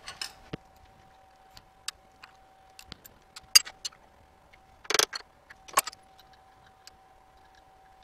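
Steel toe clamps and their hardware clinking and clicking against the rotary table as they are set in place to clamp a workpiece down: irregular metal knocks, the loudest about three and a half and five seconds in. A faint steady hum runs underneath.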